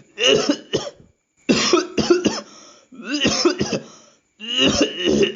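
A person coughing in four fits, each a cluster of harsh coughs, with throat-clearing sounds mixed in.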